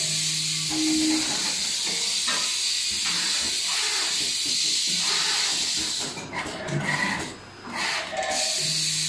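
Automatic screen printing machine and its automatic feeding table running, with a steady air hiss that breaks off briefly between about six and eight seconds in. A short low hum followed by a brief higher tone sounds near the start and again near the end, recurring with the machine's cycle.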